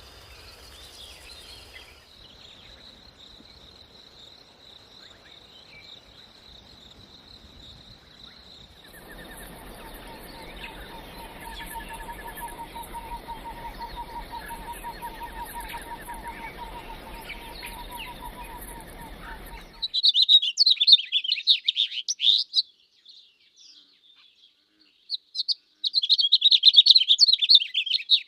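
Bird calls in three abrupt sections. First a faint, steady high trill; then, from about nine seconds, a rapid lower trill under a high buzz; then, from about twenty seconds, two loud bouts of fast chirping with a short pause between them.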